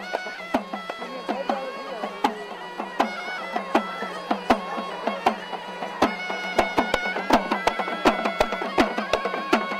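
Traditional folk music: a melody of held, stepping notes over a steady low drone, with sharp drum strokes several times a second that come thicker in the second half.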